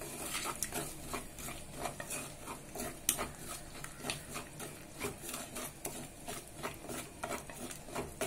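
A wooden spatula stirring and scraping a thick ground masala paste against the sides of a clay pot as it is sautéed, in repeated strokes about two a second.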